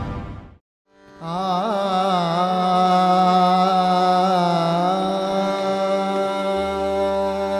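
Brief end of an intro theme fading out, then after a moment of silence Indian classical music begins about a second in: a steady drone with a melodic line that slides and wavers above it.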